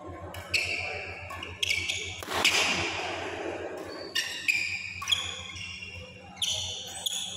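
Badminton rally: racket strikes on the shuttlecock, each a sharp hit, mixed with brief high squeaks of shoes on the indoor court. The hall echoes. The loudest is a noisy burst about two and a half seconds in.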